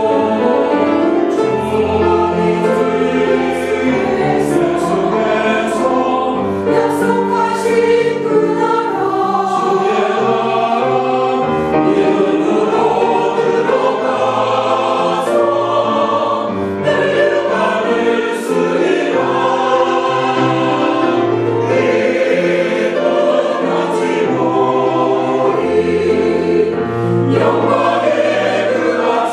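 Mixed church choir of men and women singing a sacred anthem in Korean in harmony, holding sustained notes.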